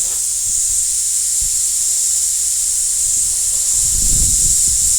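Compressed-air paint spray gun laying down a pearl coat: a steady high hiss that starts abruptly as the trigger is pulled. A low rumble joins about four seconds in.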